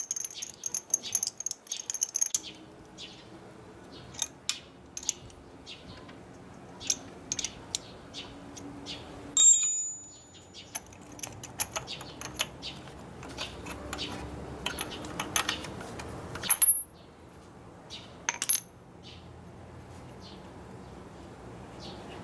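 Small metallic clicks and scrapes of a spark plug tool against the engine as a new spark plug is threaded into a motorcycle cylinder head by hand, with a few louder clinks, the loudest ringing briefly about ten seconds in.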